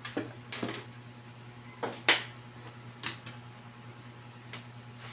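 Small objects and tools being handled on a workbench: about half a dozen sharp clicks and taps at uneven intervals, the loudest a little after two seconds in, over a steady low electrical hum.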